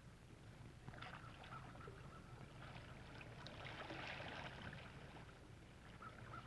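Faint water lapping and trickling with small splashes, strongest around the middle, over a steady low hum.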